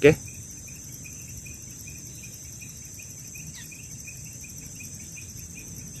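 Insects calling steadily: a high continuous shrill with a fast pulsing chirp beneath it, and one short falling note about three and a half seconds in.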